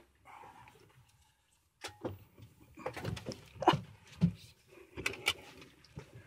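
Handling noise: an irregular run of knocks, clicks and rustling, starting about two seconds in, as the golf cart's soft enclosure is handled and pulled shut.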